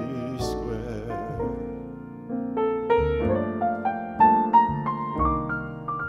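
Jazz piano solo with an upright bass playing underneath: single-note piano lines that climb in steps in the second half.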